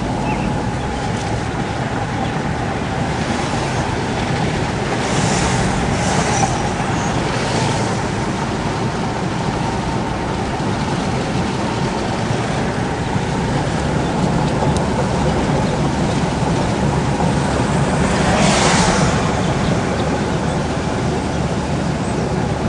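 Steady road and engine noise of a vehicle on the move, with brief louder hissing swells about five seconds in and again near eighteen seconds.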